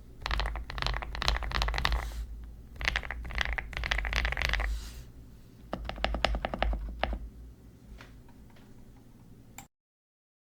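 Typing on a Zuoya GMK81 mechanical keyboard fitted with KTT HaluHalo V2 switches hand-lubed with Krytox 205G0. There are two quick runs of keystrokes, then a slower string of single key presses and a few last taps, and the sound cuts off shortly before the end.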